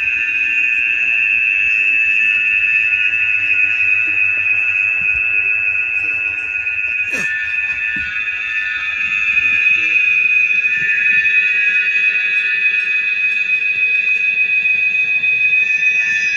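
A steady, high-pitched buzzing tone, with a single sharp click about seven seconds in.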